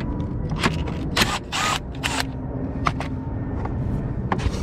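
Handling noise: a scatter of sharp clicks and knocks, with a short rustle about one and a half seconds in, over a steady low rumble.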